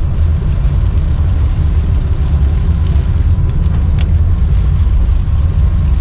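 Car cabin noise while driving on a wet road in heavy rain: a steady low rumble of engine and tyres on the wet road. A faint tick comes about four seconds in.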